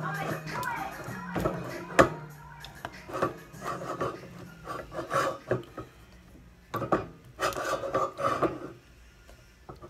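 Wooden spoon scraping and rubbing through thick, sticky fufu dough in a metal pot, in irregular strokes as the dough is beaten and kneaded smooth. A sharp knock about two seconds in, and another near seven seconds, as the spoon strikes the pot.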